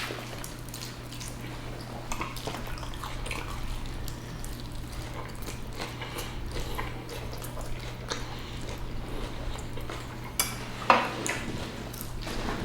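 Cutlery and dishes clinking lightly now and then as people eat, with a few sharper clinks near the end, over a steady low hum.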